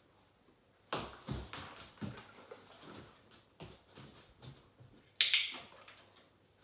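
Dog's paws stepping off and back onto a wooden balance board: the board knocks against the floor, and claws click on the wooden floor and board. A loud, short rustle about five seconds in.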